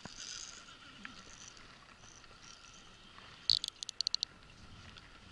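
Baitcasting reel's drag clicking in a quick burst of about eight clicks, about three and a half seconds in, as a hooked fish runs and pulls line off the reel. Under it is a low steady hiss.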